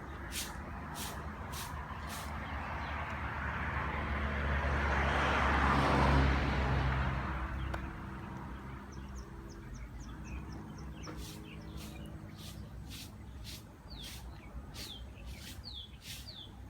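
A motor vehicle passing by, its engine noise growing louder to a peak about six seconds in and fading away by eight seconds. Short high bird chirps follow in the second half.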